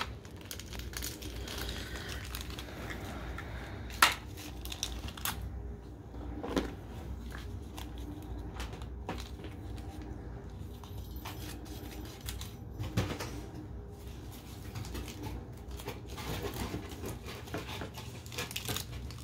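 Small plastic toy pieces and wrapping being handled: scattered clicks and taps with light rustling. The sharpest click comes about four seconds in.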